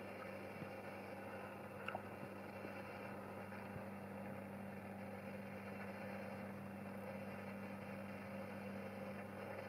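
A steady low hum with a background hiss, and one faint click about two seconds in.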